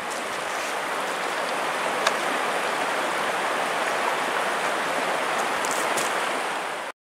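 Steady rushing of a river's flowing water, an even hiss with no change in level, breaking off suddenly near the end.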